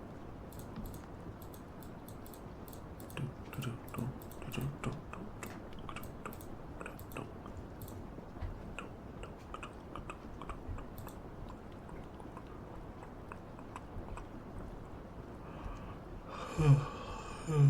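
Typing on a computer keyboard: scattered, irregular key clicks, a little busier a few seconds in. Two short, louder sounds come about a second before the end.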